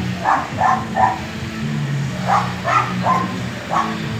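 A dog barking repeatedly, about seven short barks in two quick runs, over a steady low hum.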